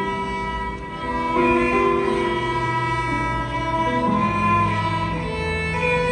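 Instrumental music: a violin playing a slow melody of long held notes over sustained string chords.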